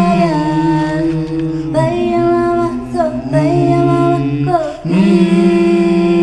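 A cappella vocal group singing close harmony, holding long sustained chords that change every one to two seconds, with a deep bass line under them.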